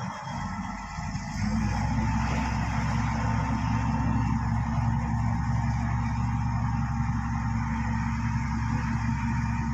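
Bulldozer's diesel engine running steadily under load. Its low drone drops away briefly near the start, then carries on at an even pitch.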